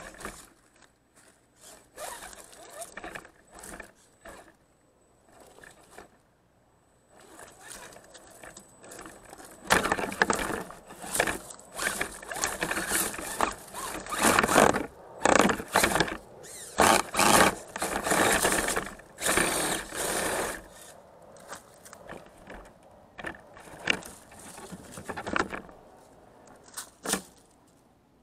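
RC rock crawler's tires and chassis scraping, crunching and clattering over rock and gravel in irregular bursts, sparse at first, busiest and loudest in the middle, then thinning out.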